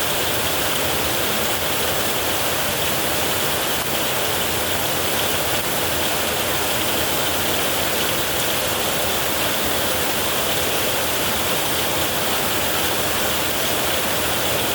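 Heavy rain falling on a metal roof, a steady, unbroken hiss with no thunder.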